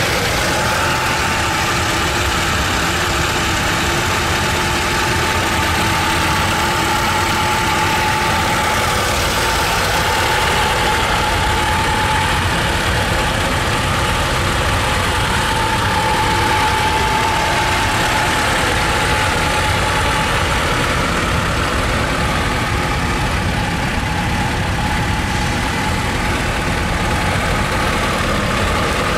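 1980 VAZ 2101's 1.2-litre inline-four engine idling steadily.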